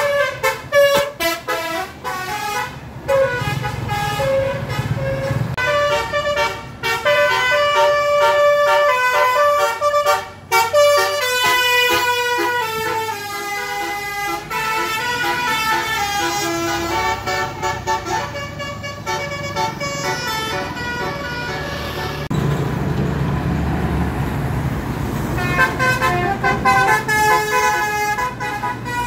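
Bus 'telolet' musical horns playing quick multi-note tunes, several tones sounding together and stepping up and down in pitch. The tunes fade partway through into a stretch of low engine and road rumble, and start up again near the end.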